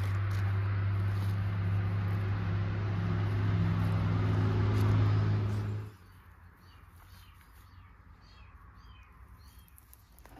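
An engine runs steadily with a low hum, then stops abruptly about six seconds in. After that, faint bird chirps are heard.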